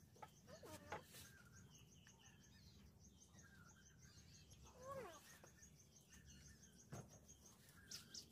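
Faint birdsong: a rapid, steady run of high chirps, about five a second, with a couple of lower sliding calls. There is a single light tap about seven seconds in.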